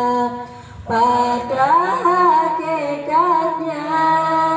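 A woman singing a syair, an Indonesian devotional sung poem, solo into a microphone. She holds long notes with a wavering, ornamented line, and takes a short breath just under a second in before the next phrase.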